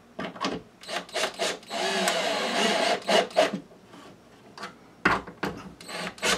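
Cordless drill driving a screw through the drywall into a wooden backing strip: the motor runs for about a second around two seconds in, amid short knocks and scrapes from the wood strip and drill being handled against the board.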